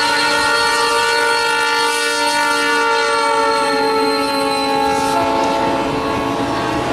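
Diesel freight locomotive's multi-chime air horn blowing one long chord as it passes close by, the pitch dropping slightly partway through, stopping near the end with the rumble of passing cars underneath.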